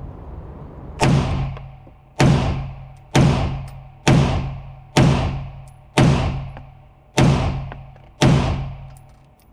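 AR-15 rifle fired eight times in slow semi-automatic fire, about one shot a second, each report followed by a long fading echo.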